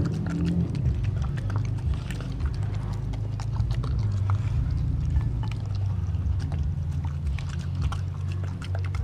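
A dog eating raw meat from a glass bowl: irregular wet chewing, smacking and clicking of its jaws, with a steady low rumble underneath.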